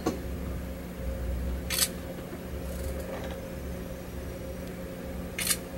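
Smartphone camera shutter sound, twice, nearly four seconds apart, over a faint steady hum.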